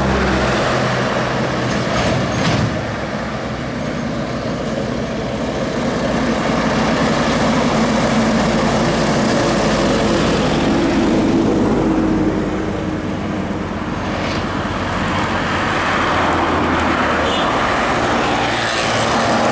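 Intercity coach and heavy dump trucks driving past close by on a highway: engines running and tyre noise, swelling as they come near.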